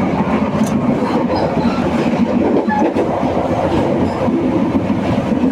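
Passenger train running along the track, a loud, steady rumble heard from inside the carriage.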